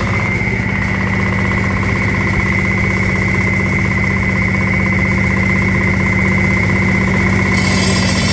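Yanmar engine of a Tiger asphalt cutter running steadily with a fast, even chugging. A steady high whine runs alongside it and drops away near the end.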